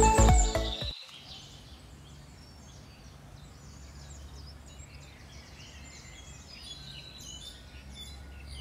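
Intro music cutting off about a second in, then outdoor ambience with scattered high bird chirps over a low steady hum.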